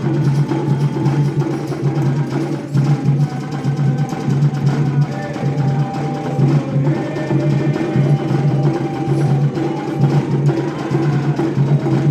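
A band rehearsing: live music with percussion, a low bass note pulsing on a steady beat, and a melody line above it.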